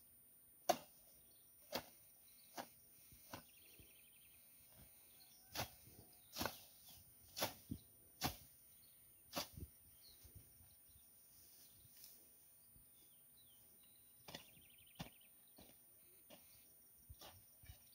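Hand hoe chopping into weedy soil. Sharp strikes come about once a second for the first ten seconds, the first one the loudest, then only a few more near the end.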